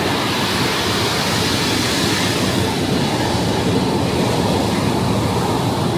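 Steady rush of ocean surf mixed with wind.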